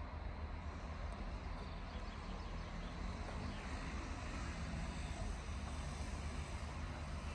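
Heavy-load train hauled by an electric locomotive rolling slowly past, giving a steady low rumble with a faint drone.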